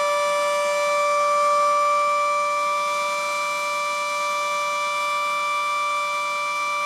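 Federal Sign & Signal Model 7B electromechanical civil defense siren holding its steady alert tone at full speed. It is one unbroken note that swells slightly in loudness and eases back.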